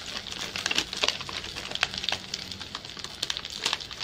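Irregular crackling of onion, garlic and ginger frying in oil in a wok while curry powder is tipped onto them from a plastic sachet.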